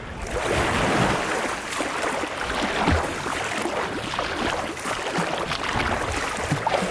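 A person swimming in a river: water splashing and sloshing close to the microphone with each arm stroke.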